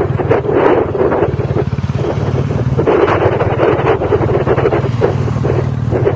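Motorcycle engine running steadily at cruising speed, its firing pulses a low even drone, with wind gusting over the microphone.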